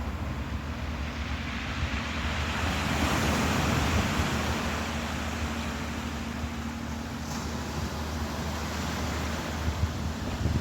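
Ocean waves washing, with wind noise on the microphone and a steady low hum underneath; the wash swells about three seconds in.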